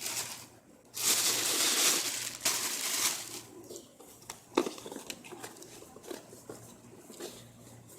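Packaging crinkling as products are unwrapped and handled, loudest for about two seconds starting a second in, then scattered light clicks and softer rustles.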